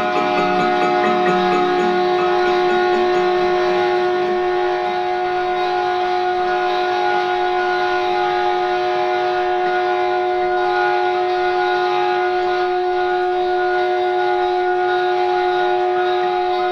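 A sustained musical drone: several steady pitches held together without change. Some lower notes fade out in the first couple of seconds.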